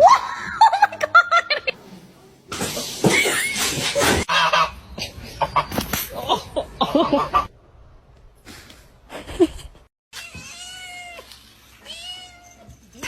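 A cat meowing several times across short separate clips, ending with two drawn-out meows.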